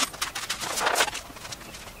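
Large sheet of adhesive-backed poster map paper crinkling and rustling as it is handled, with a louder swish about a second in.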